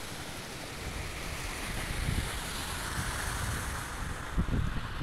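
Floodwater rushing over the crest of an overflowing dam, a steady hiss of moving water. Wind buffets the microphone in low thumps near the end.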